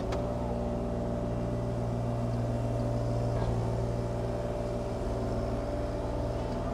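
Bobcat E35i mini excavator's Kubota diesel engine running steadily under hydraulic load while the boom lifts and the upper house swings.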